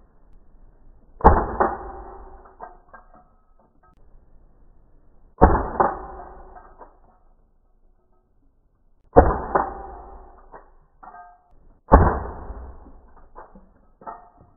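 Four shots from an airsoft Colt 1911 pistol, its BBs striking a water-filled plastic bottle. Each is a sudden crack followed by a rattle that dies away over about a second, the shots coming a few seconds apart.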